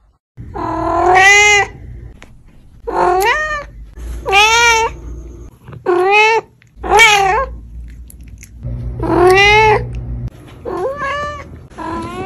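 A cat meowing loudly and repeatedly, about eight separate meows, each rising and then falling in pitch. The longest comes about two-thirds of the way through.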